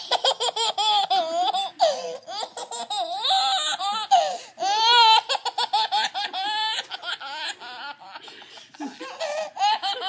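A baby laughing hard in repeated bouts of quick, high-pitched pulses, loudest in the first half and tapering toward the end.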